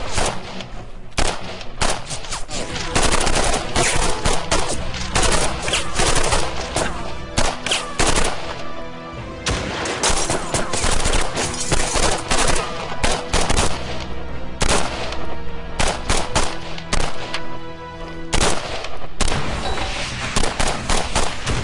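Sustained gunfire: rapid bursts of automatic fire mixed with single shots, almost without pause, over dramatic background music.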